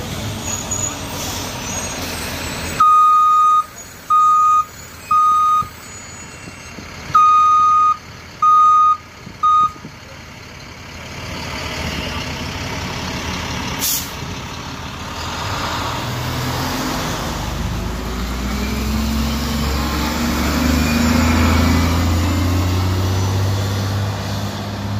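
A city transit bus at a stop sounds two sets of three warning beeps, a long beep then two short ones each time, followed by a short burst of air hiss. Its engine then revs up and grows louder as the bus pulls away from the stop.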